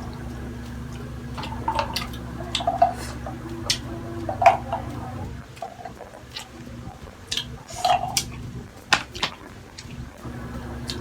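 Close-up eating sounds of sisig being chewed: irregular wet smacks and clicks of the mouth, with a steady low hum underneath.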